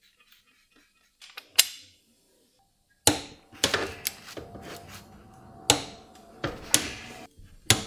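Ratchet wrench turning a socket to tighten bolts on a brake caliper: a few light metal clicks, then from about three seconds in a run of ratchet clicking with sharp metallic clicks and knocks.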